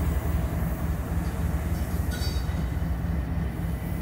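Diesel-electric freight locomotives passing close by, their engines running with a steady deep rumble, as the train's cars begin to roll past behind them.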